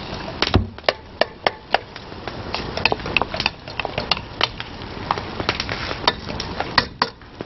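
A wooden spoon stirring diced potato and vegetables in an aluminium pot over a wood fire: frequent sharp, irregular knocks and scrapes of the spoon against the pot over a low steady sizzle.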